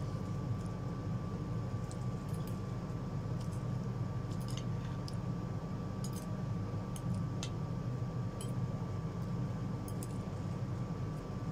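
Metal forks clinking and scraping on a plate as instant noodles are twirled and eaten: scattered small clicks, about one a second, over a steady low hum with a faint high whine.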